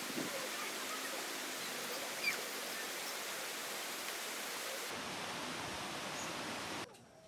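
Steady outdoor background hiss with a few faint short chirps; it drops abruptly to a much quieter ambience near the end.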